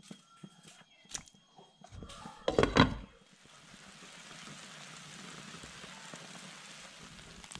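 Light scattered ticks, then a brief loud thump about two and a half seconds in. After that, a pot of chicken soup at a rolling boil gives a steady, even bubbling hiss.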